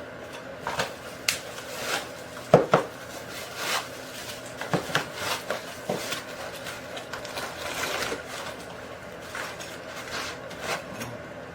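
Unpacking a boxed door handle set by hand: cardboard and packaging rubbing and scraping, with scattered clicks and knocks as the parts are handled, the loudest a pair of knocks about two and a half seconds in.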